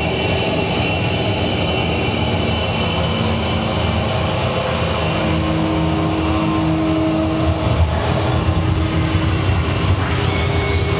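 Dense, steady electronic noise drone from a stage performance's soundtrack, heavy in the low end, with held tones layered over it; a clear mid-pitched tone sounds for a couple of seconds about halfway through.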